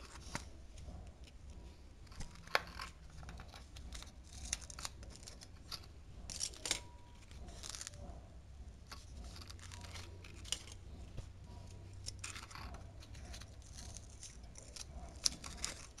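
Adhesive tape being pulled off its roll and torn in several short peeling rasps, with light clicks as it is handled and pressed onto a small metal buzzer module.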